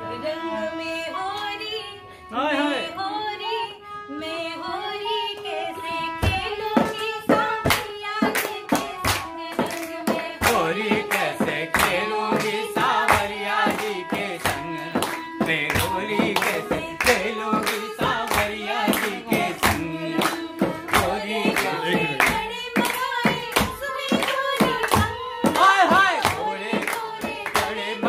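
A group singing a traditional Hori (Holi folk song) to harmonium accompaniment. About six seconds in, dholak strokes and hand clapping join in a steady beat.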